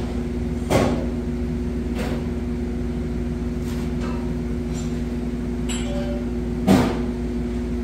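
A steady machine hum with a low rumble, broken by two sharp knocks about six seconds apart.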